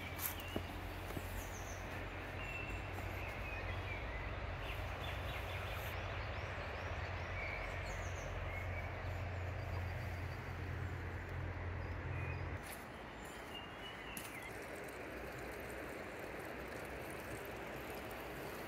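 Steady rush of a river running over rocks, with small birds chirping now and then. A low steady hum underneath cuts off about two-thirds of the way through.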